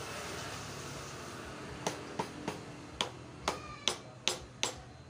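Sharp metal taps, about two to three a second, starting about two seconds in, some with a short ring: a hand tool knocking on the cylinder of a seized Honda Scoopy engine to work it loose. Before the taps there is only a faint rustle of handling.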